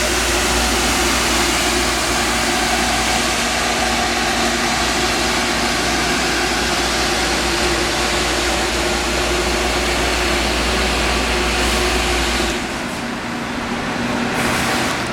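Munters Cargocaire rotor-type desiccant dehumidifier running, its fans making a loud steady rush of air with a faint hum. About three-quarters of the way through, the low rumble drops out and the sound gets a little quieter.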